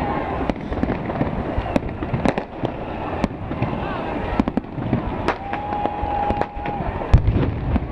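Fireworks going off: many sharp bangs and crackles from aerial shells, one after another, over a constant rumble of more bangs. About five seconds in, a steady whistling tone holds for over a second.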